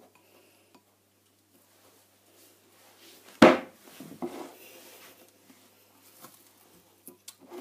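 Hands peeling cling film off a microwaved ceramic bowl on a worktop. There is a single sharp knock about three and a half seconds in, followed by faint rustling and handling noises and a few light clicks near the end.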